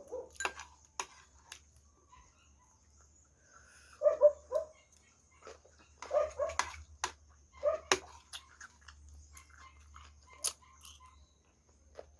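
Close-miked eating sounds: chewing and lip-smacking clicks, with a few short groups of high, pitched voiced sounds about 4, 6 and 8 seconds in.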